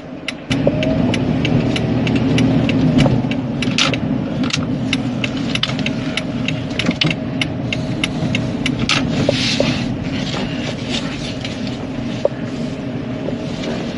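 Motor vehicle engine running with a steady low rumble that starts abruptly about half a second in, with many light clicks over it.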